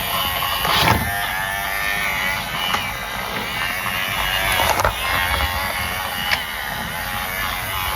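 Small electric motor of a battery-powered toy whirring steadily, with a few sharp clicks.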